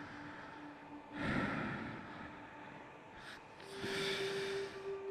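Sparse electronic intro: two breathy rushes of noise, one about a second in and a longer one near the end, over a held low synth tone that changes to a slightly higher note near the end.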